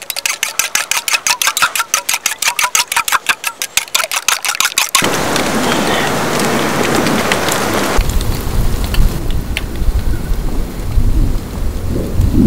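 Chopsticks whisking raw egg in a small steel cup, quick clicking strokes about eight a second. Then, after an abrupt change at about five seconds, the steady hiss of chicken and broth simmering in a steel pot over a small wood-fired stove. A low rumble joins the hiss about eight seconds in.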